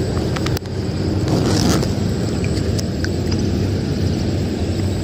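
Steady low rumble of road traffic crossing a highway bridge, with a few light clicks about half a second in and a short swish about a second and a half in.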